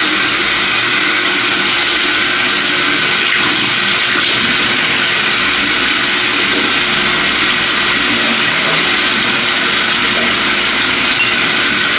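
Single-lever mixer tap running full, a steady stream of water splashing into a ceramic washbasin.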